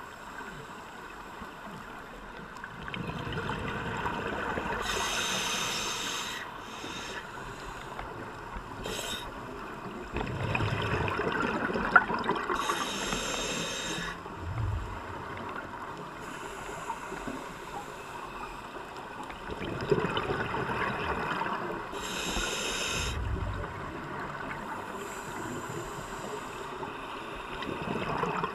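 Scuba regulator breathing underwater: a rushing gush of exhaled bubbles about every eight seconds, several ending in a short hiss, with quieter stretches between breaths.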